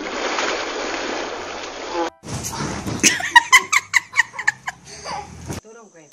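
Water splashing and spraying as a child slides down an inflatable water slide into its splash pool, for about two seconds. Then loud laughter in quick repeated peals for about three seconds.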